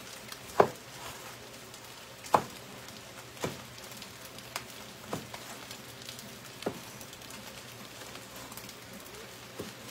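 Meat cleaver chopping on a wooden cutting board: about seven sharp, unevenly spaced knocks, the first two loudest. Spam frying in a pan on the stove keeps up a faint, steady sizzle underneath.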